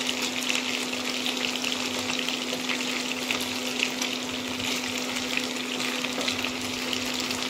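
Chicken pieces shallow-frying in hot oil in a non-stick wok: a steady sizzle full of small crackles and pops. A steady low hum runs underneath.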